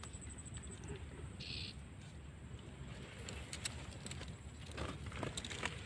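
Quiet handling sounds of a gill net being worked by hand and fish going into a cloth carry bag: soft rustling and light clicks that grow busier in the second half, over a low steady rumble. A short high chirp comes about one and a half seconds in.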